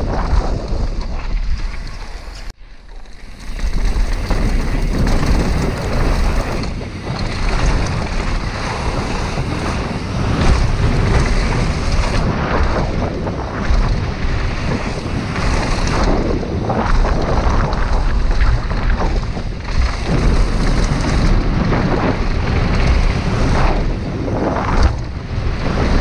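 Mountain bike ridden fast down a dirt trail: heavy wind buffeting on the bike-mounted camera's microphone over tyre rumble and the rattle of the bike over roots and bumps. The noise drops out sharply for a moment about two and a half seconds in, then comes straight back.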